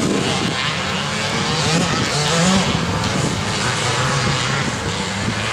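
Twinshock motocross bike engines revving, the pitch rising and falling as the bikes race round the dirt track.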